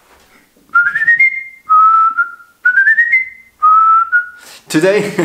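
A man whistling a short tune in four phrases: the first and third step upward in pitch, the second and fourth sit lower and stay level.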